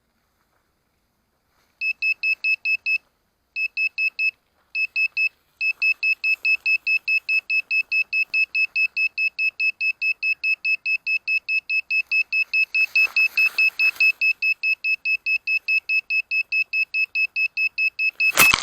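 A crashed FPV quadcopter's lost-model beeper sounding rapid, evenly spaced high-pitched beeps, several a second, pausing briefly twice before running on without a break. Near the end there is a sudden loud noise.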